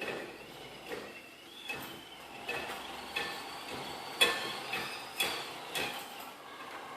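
Sharp metallic clanks and clicks, about eight spread unevenly across several seconds, some ringing briefly. The loudest comes a little past four seconds in. It sounds like metal tools being handled and knocked together, not steady grinding.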